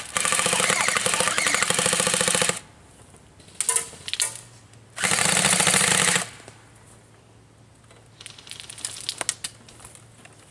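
Tripod-mounted airsoft gun firing full-auto: a long burst of about two and a half seconds, a short burst, then another burst of about a second. Faint scattered ticks follow.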